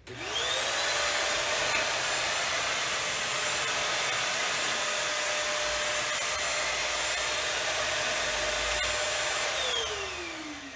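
Bissell Hercules Slim Vac commercial stick vacuum switched on, its motor whining up to speed within half a second, then running steadily. About a second before the end it is switched off and winds down with a falling whine.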